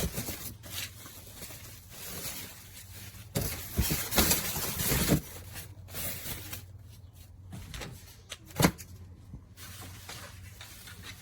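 Packaging being handled: rustling, with a few sharp knocks, the loudest a single knock about three quarters of the way through, and a louder stretch of rustling in the middle.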